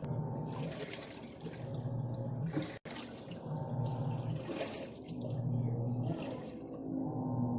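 Sharp ES-V75HP-GY automatic washing machine washing: water sloshing as the motor drives the wash in alternating pulses of about a second each.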